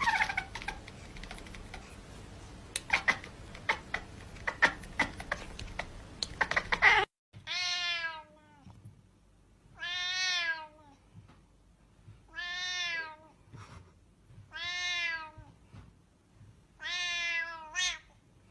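A cat meows five times in drawn-out calls of about a second each, roughly two seconds apart, with its mouth wide open as a hand reaches toward it. Before that comes a short cry and a run of sharp clicks and knocks over a noisy background.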